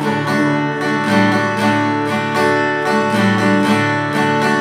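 Two acoustic guitars strummed together in a steady rhythm, with no voice: an instrumental passage between sung lines.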